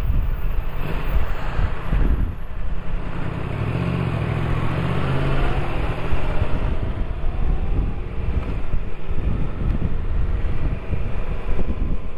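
Motorcycle engine running under heavy wind buffeting on the microphone. A few seconds in, the engine note comes through steadily and rises in pitch.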